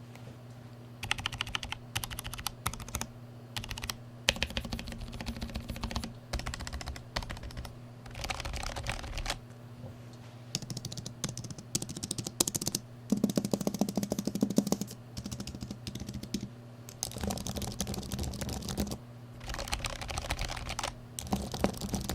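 Typing on a low-profile keyboard in a sound test: bursts of rapid keystroke clicks a second or two long, with short pauses between them, over a faint steady low hum.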